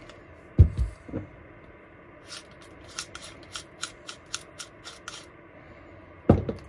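Cordless drill motor's planetary gearbox clicking as its unlocked output shaft is twisted back and forth by hand, the free play in the clutch letting the gears knock, at about four or five clicks a second. Heavier handling thumps of the motor housing come about half a second in and near the end.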